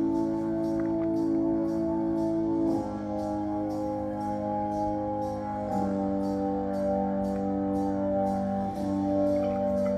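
Background music: sustained organ-like keyboard chords that change about every three seconds, over a faint, quick, even ticking.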